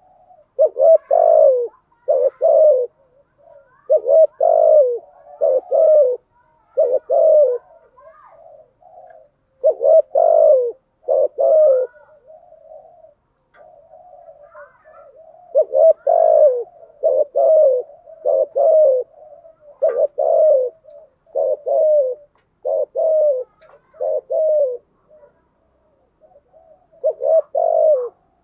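Spotted dove cooing over and over: short low coos in groups of two or three with brief pauses, a quicker run of coos in the second half, and quieter coos in some of the gaps.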